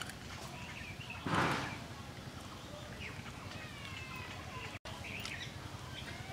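Birds chirping in the background, with one short scraping rasp about a second in as a tilapia is scraped against the blade of a boti. The sound drops out for a split second near the end.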